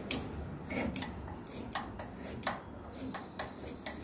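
Hand bearing puller wound by its T-bar to pull a ball bearing off an electric water-pump motor shaft: a string of irregular light metallic clicks and ticks.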